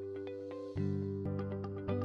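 Instrumental background music with a steady beat of about two clicks a second over held tones; a louder, deeper part comes in just under a second in.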